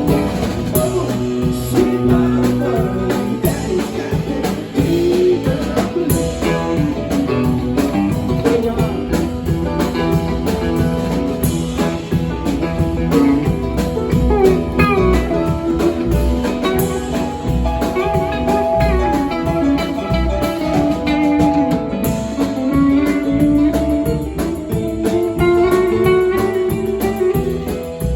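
A band playing a bluesy tune: guitar with sliding, bent notes over a steady drum beat.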